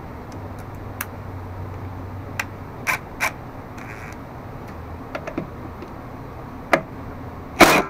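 A few light clicks and taps of a socket being fitted onto the mower's 14 mm rear-wheel bolt. Then, near the end, a loud, short burst from a Porter-Cable cordless impact driver starting to work the bolt loose.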